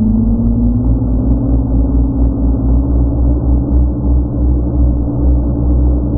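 FPV quadcopter motors and propellers running: a steady hum that slowly rises in pitch, over a low, pulsing rumble.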